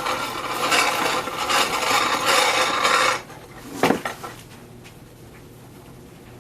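Hand-cranked corona-style grain mill grinding malted grain: a loud gritty rasp that surges with each turn of the crank, stopping about three seconds in, followed by a single knock.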